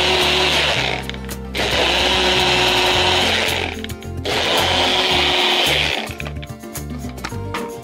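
Countertop blender motor whirring as it purées a green plant mixture, run in three bursts with short pauses about one and four seconds in, then switched off about six seconds in.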